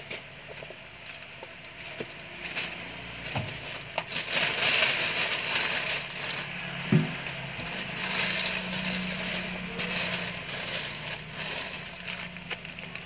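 Packaging being crinkled and rustled by hand, swelling twice, with scattered clicks and a single knock about seven seconds in.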